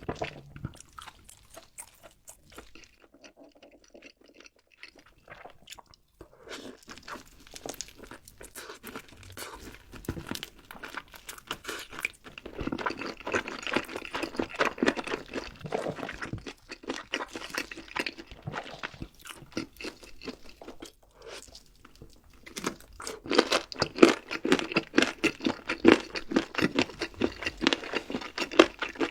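Close-miked crunching and chewing of crisp food, coming in spells of rapid crunches with quieter chewing in between.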